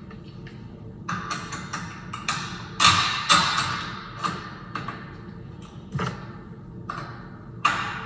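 Clicks, clinks and rattles of a Kwikset deadbolt's metal parts being handled and fitted together on a door, in a string of short bursts.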